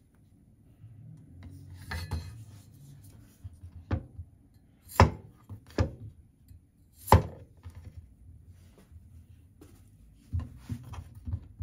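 A Chinese cleaver chops through a cucumber and strikes a wooden cutting board. There are a few sharp knocks, the loudest about five and seven seconds in, then a quick run of lighter taps near the end.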